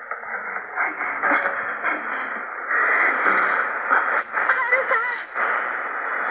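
Shortwave radio reception with a steady band of static hiss and muffled, narrow-band audio, as from an 11815 kHz broadcast on a portable receiver; faint voices come through the noise from about halfway in.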